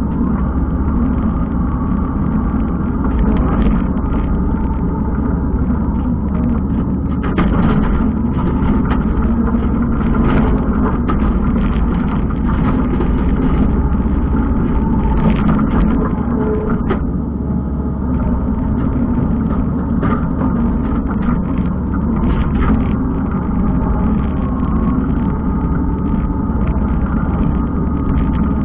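Kubota skid steer's diesel engine running steadily at working revs, with short scrapes and knocks now and then.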